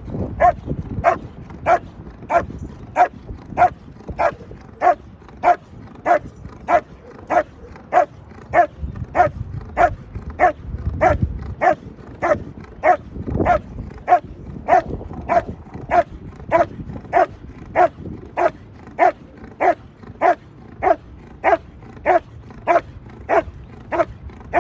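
A dog barking over and over at an even pace, about two barks a second, each bark short and much the same as the last, with no break.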